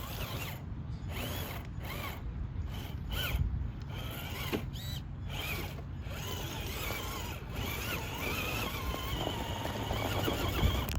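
Traxxas TRX-4 RC crawler's electric motor and geared drivetrain whining in stop-start bursts, the pitch rising and falling with the throttle as the truck crawls over dirt.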